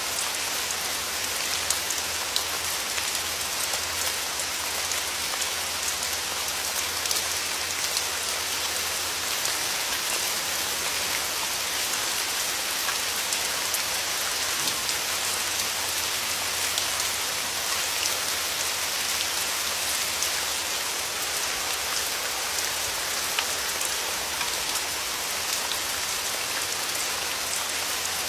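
Steady rain falling, an even hiss with many small drop ticks on a hard surface.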